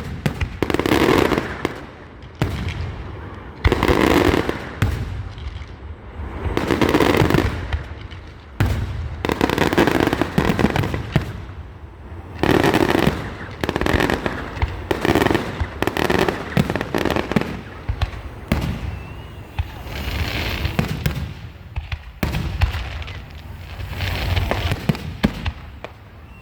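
Aerial fireworks display: shells bursting one after another, a boom or crackling burst every one to three seconds.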